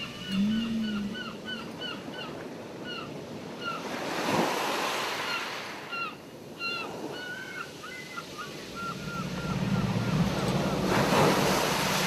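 Ocean surf washing in, swelling about four seconds in and again near the end, under quick runs of seagull calls, short yelping notes about three a second. A low steady drone rises under the surf in the last few seconds.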